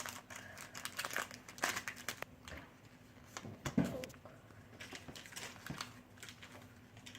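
Foil wrapper of a Pokémon TCG Breakpoint booster pack crinkling and tearing as it is opened by hand, in irregular crackles, with a louder crunch a little under four seconds in.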